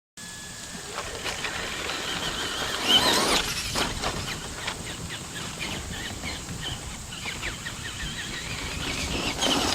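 Traxxas Bigfoot RC monster truck driving, its electric motor whining up and down in pitch with the throttle, loudest about three seconds in and again near the end. Short crunches come from the tyres on rough ground.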